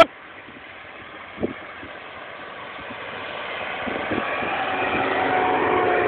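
Rolling noise of a dog scooter being pulled over grass, growing steadily louder toward the end as it gathers speed. There is a sharp knock at the start and a smaller one about a second and a half in.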